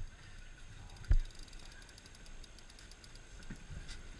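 Rapid fine clicking from a big-game conventional fishing reel as it is worked during a fight with a fish, with one heavy low thump about a second in.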